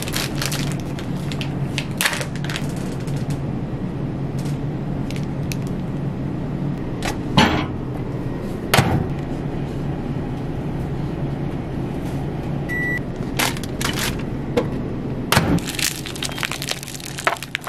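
Plastic food packaging being handled and torn open, with sharp crackles and clicks, over a steady low hum. A single short high beep sounds about thirteen seconds in.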